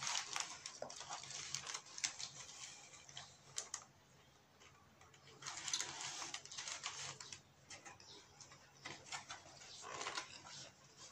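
Paper wrapper around a burger crinkling and rustling as it is opened and handled in a takeaway box, in three short spells of crackly noise.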